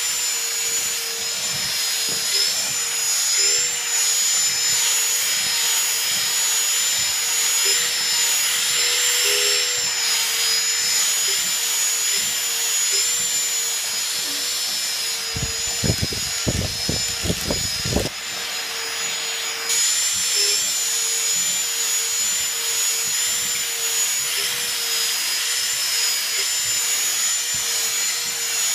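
Vacuum cleaner running steadily with a high whine and hiss. A little past the middle comes a quick run of knocks or bumps lasting about two seconds.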